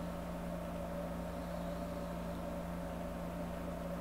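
A steady low hum with a fainter held tone above it, unchanging and without any distinct events.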